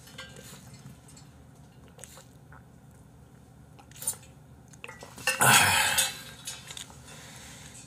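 Drinking from a large insulated water jug through its spout lid: faint sips and swallows with small clicks. About five seconds in comes a louder rushing noise lasting about a second.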